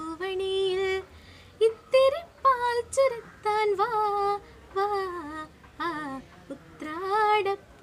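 A girl singing solo without accompaniment, holding notes in short phrases with brief pauses between them.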